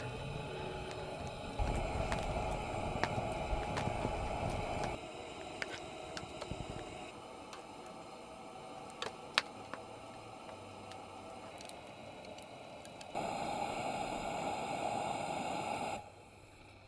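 Campfire crackling with a low hiss, with sharp pops here and there, in several short stretches that cut in and out abruptly.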